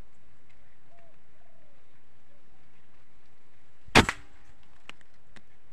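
A single air rifle shot about four seconds in: one sharp crack that dies away almost at once.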